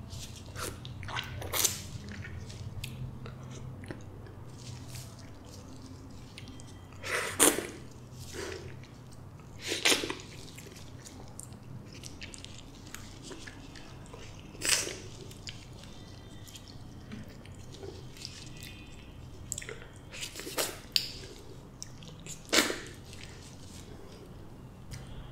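Close-miked eating of soft, creamy custard apple flesh: quiet wet chewing, broken by a few sharp, sudden mouth smacks several seconds apart.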